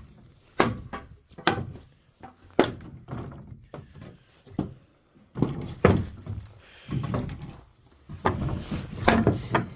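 Irregular heavy knocks and thuds, about a dozen, some coming in quick runs, with a short ring after each.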